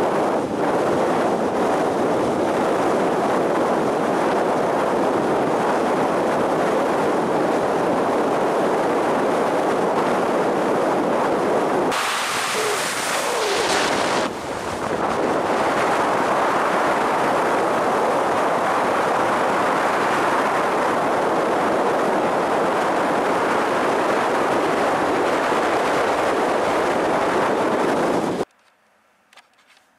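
Strong wind blowing across the camera microphone: a steady loud rush that turns brighter and hissier for a couple of seconds about twelve seconds in, and cuts off suddenly near the end.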